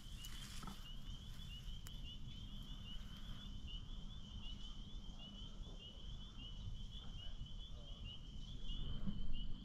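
Outdoor ambience: a steady high-pitched chirring trill from calling animals, repeating rapidly without a break, over a faint low rumble.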